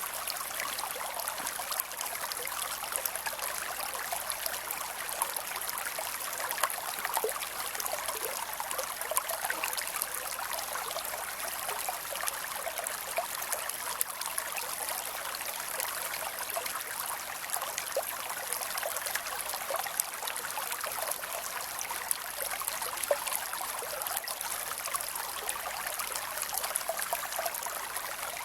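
Small creek flowing steadily over rocks, a continuous babble and trickle of water with many small splashes.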